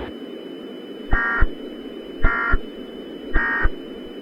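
Emergency Alert System end-of-message data bursts: three short, identical buzzy digital bursts about a second apart, each starting and ending with a click. Under them runs a steady hiss and hum with a faint high steady tone.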